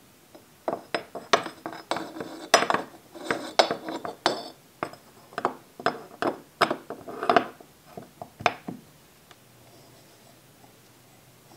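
A mini engine's crankshaft clinking and knocking against its metal crankcase as it is fitted into the block and turned by hand: a run of sharp metallic clicks with a light ring, stopping about nine seconds in.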